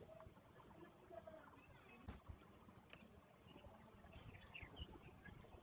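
Very quiet ambience with a steady high-pitched hum. A single sharp knock comes about two seconds in, then a fainter click a second later.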